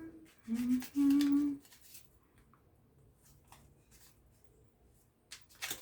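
A woman humming a few short held notes of a tune, then soft clicks of tarot cards being handled, with a brief sharper rustle of a card near the end.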